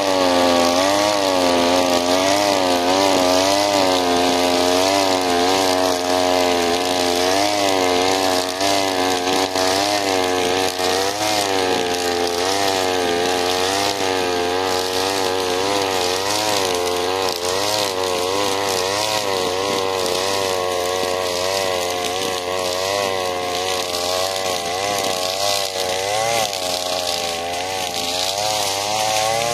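Alpina Star 55DP petrol brushcutter mowing long grass, its small engine running near full throttle. The pitch dips and rises about once a second as the cutting head sweeps through the grass under load, with a hiss of line on grass over the engine note.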